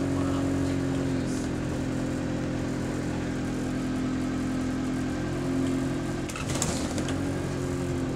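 Alexander Dennis Enviro200 Dart bus's Euro 5 diesel engine droning steadily, heard from inside the passenger saloon. Its pitch dips slightly about a second in and rises again near six seconds, with a brief rattle about six and a half seconds in.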